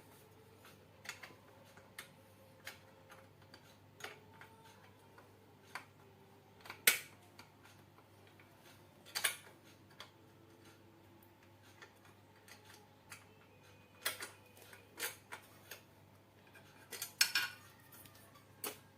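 Irregular clicks, taps and metallic clinks of small metal parts and tools being handled, with a few louder knocks about seven and nine seconds in and a cluster near the end, over a faint steady hum.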